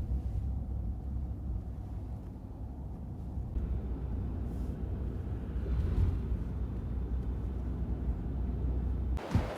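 Steady low road rumble of a car heard from inside the cabin while driving, cutting off abruptly near the end.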